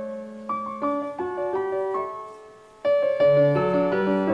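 Slow piano music, one note or chord about every half second, with a louder chord and low bass notes coming in about three seconds in.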